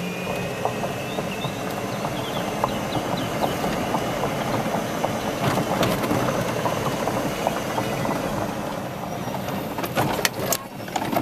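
Golf cart running along a paved cart path, heard from aboard: a steady rough running noise with constant light rattling, and a few sharp knocks near the end.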